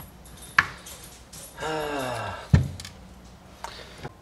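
Metal parts of a small 110cc ATV engine clinking and knocking as a crankcase half is handled: a sharp clink about half a second in, a heavier knock a little past the middle, and a few light clicks near the end. Just before the knock, a man's low groan falls in pitch.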